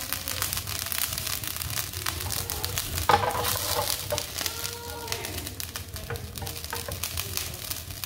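Noodles in broth bubbling and sizzling in a stainless-steel pan over a gas flame: a steady crackle of fine pops. A single sharper knock comes about three seconds in.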